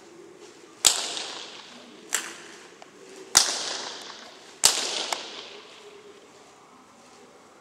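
A whip cracked four times, a second or so apart, the second crack weaker than the rest, each sharp crack trailing off in the echo of the indoor arena.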